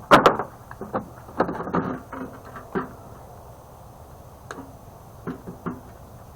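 Irregular metal clicks and knocks from hand work on a microwave's sheet-metal chassis while the screw holding the fan motor is taken out. The loudest knock comes right at the start and a cluster follows a second or two in, then fainter clicks near the end.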